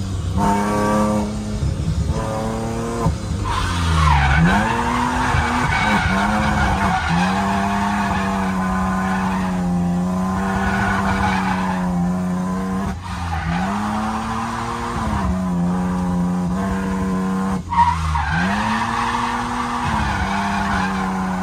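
Drift car's engine held high in the revs through a slide, heard from inside the cabin, with tyres squealing. The revs drop sharply and climb back three times, a few seconds in, past the middle and near the end.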